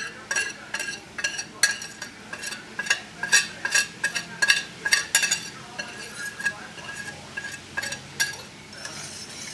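Wire whisk beating a sauce in a stainless steel pot, its wires clinking against the pot's sides about two or three times a second, stopping near the end. A brown rice flour slurry is being whisked into the sauce to thicken it.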